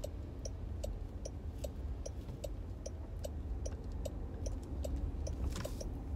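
Turn-signal indicator ticking steadily inside a moving Jaguar I-Pace, about two and a half ticks a second, over low road rumble in the cabin. A brief rush of noise comes near the end.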